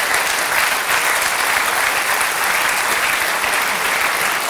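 Large theatre audience applauding, a dense and steady round of clapping that keeps an even level throughout.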